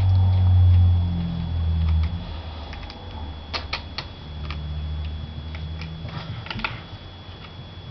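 Small sharp clicks of a Torx screwdriver and the handset as the tiny screws of a BlackBerry 8830 are worked out, in two clusters about three and a half and six seconds in. Under them runs a low rumble, strongest in the first two seconds, and a faint steady high whine.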